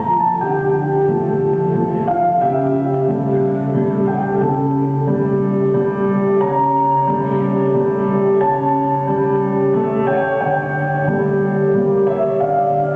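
Slow instrumental background music of sustained notes, with piano and bowed strings.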